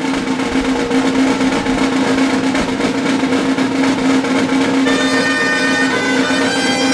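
Reed wind instruments and drums playing music, a low note held steadily underneath. About five seconds in, a higher melody line comes in above it.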